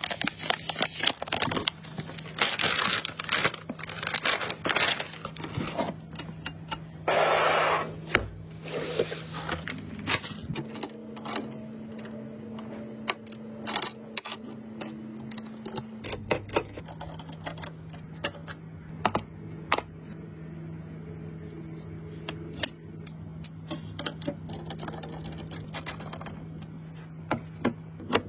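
Hands working with computer hardware: a string of small clicks, knocks and scrapes, with several bursts of rustling in the first ten seconds, over a steady low hum.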